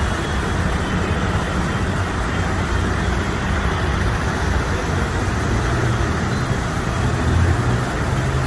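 Steady road traffic noise of passing vehicles, with a low engine hum standing out in the last few seconds.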